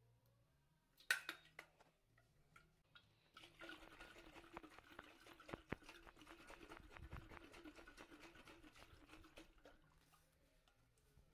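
Faint sloshing of water inside a sealed stainless steel NAYAD Roamer bottle as it is tipped upside down and shaken in a leak test, with a sharp click about a second in.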